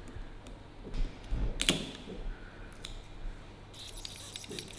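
Small clicks and handling noises of a Bronica ETRS medium format camera's film insert and spools being worked by hand while loading film, with one sharper click about a second and a half in and a run of small ticks near the end.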